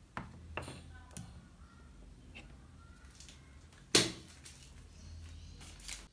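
A USB-C charging cable being handled and moved about: light knocks and rustles, with one sharp click about four seconds in, over a low steady hum.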